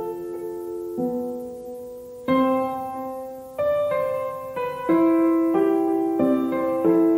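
Background piano music: slow chords and single notes, each struck and left to ring and fade.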